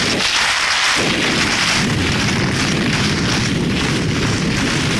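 Wind buffeting the microphone of a moving skier, a heavy low rumble that grows stronger about a second in, over a steady hiss of skis gliding on snow while two dogs tow the skier.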